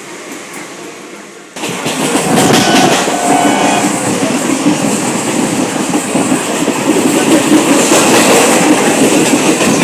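Train running on the rails: loud rumbling and clattering that starts abruptly about a second and a half in.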